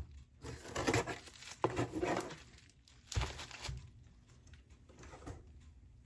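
Packing material in a shipping box rustling and crinkling in short, uneven bursts as hands dig through it to pull out a box.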